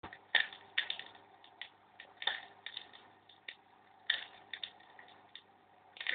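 Vinyl LP running in its lead-in groove on a turntable: irregular crackles and pops of surface noise over a faint steady hum.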